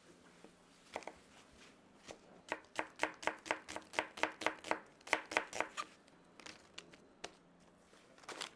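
Kitchen knife slicing an onion on a plastic cutting board: a quick, even run of chops, about five a second for about three seconds, with a few single cuts before and after.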